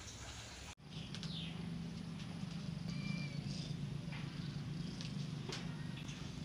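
A cat purring close to the microphone, a steady low rumble that starts abruptly under a second in after a short stretch of hiss.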